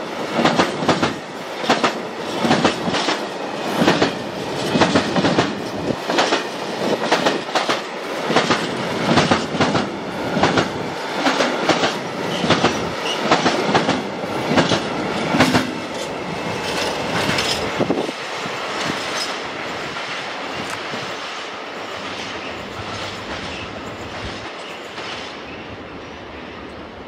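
Empty freight flat wagons rolling past, their wheels clacking over the rail joints in quick groups of beats. About two-thirds of the way through the clacking stops and the sound of the train fades steadily as it moves away.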